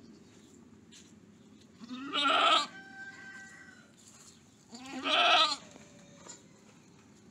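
Goat bleating twice, each a wavering call under a second long, about three seconds apart.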